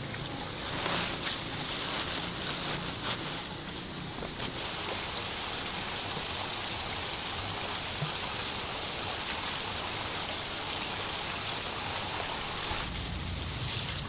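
Light clicks and rustles of eggs being handled in a woven basket, then a steady hiss that sets in about four seconds in and stops abruptly near the end.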